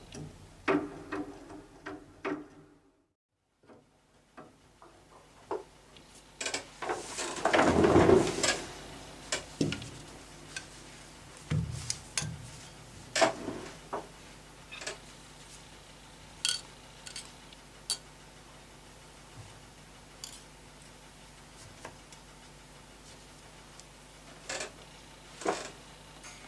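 Scattered clicks, taps and knocks of small parts and tools being handled during piano damper repair, with a longer, louder scraping rustle about eight seconds in.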